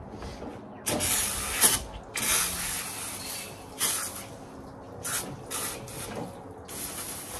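Cheap low-pressure hose-end spray nozzle jetting water into a truck's engine bay in about six hissing bursts, each starting and stopping sharply, to wash down the degreased engine.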